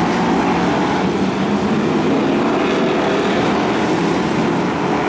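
A pack of BriSCA F1 stock cars racing, their V8 engines blending into one loud, continuous engine noise that holds steady.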